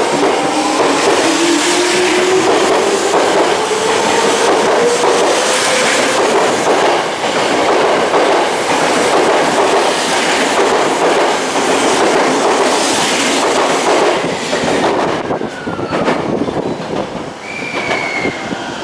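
Electric commuter train running on rails: the traction motors' whine rises in pitch at the start, then the wheels clatter and rumble over the track, easing off near the end.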